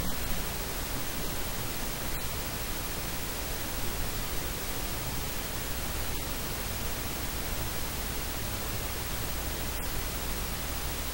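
Steady hiss of static, even from low to high, with no voice to be heard.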